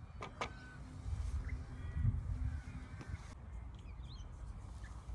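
Birds calling over a low rumble of wind on the microphone, with two light clicks shortly after the start.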